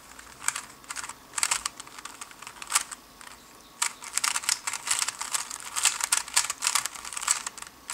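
A 3x3 speed cube being turned by hand. Its layers click a few times at first, then click rapidly and densely for about four seconds as an algorithm is executed at speed.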